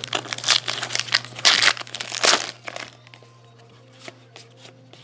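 A foil trading card pack being torn open and crinkled in the hands: dense crackling for about three seconds, then dropping to a few light taps as the cards inside are handled.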